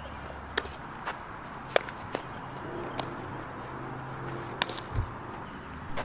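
About six sharp smacks of a softball during throwing and fielding drills, spread irregularly, over a steady low outdoor background, with a dull low thump about five seconds in.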